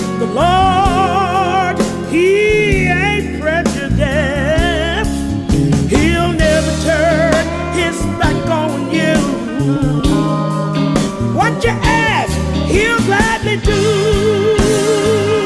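Background music: a slow, soulful song with a wordless, wavering sung melody over guitar and a steady bass.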